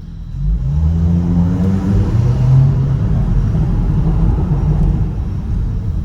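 Audi B9 S4's turbocharged 3.0-litre V6 blipped from idle, its pitch rising then falling, with irregular crackling through the exhaust as the revs drop. The crackles on the overrun come from the EPL Stage 1 ECU tune, with a cat delete in the otherwise stock exhaust.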